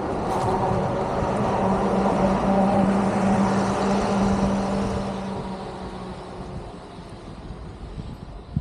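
A motor vehicle passing close by on the road, its steady engine and tyre hum growing louder and then fading away over about five seconds.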